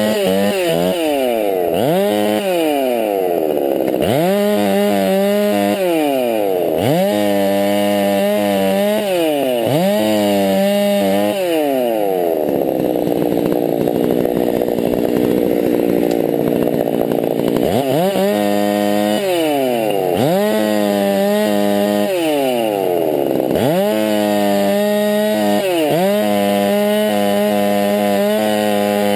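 Walkerized Husqvarna 390 XP two-stroke chainsaw bucking arbutus limbs: the engine runs at high revs, with the throttle dropped and reopened every couple of seconds, and runs lower and rougher for several seconds midway.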